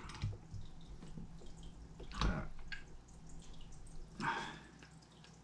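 A few light clicks and taps from handling a metal soft-plastic lure mold as it is pried open, the sharpest about two seconds in.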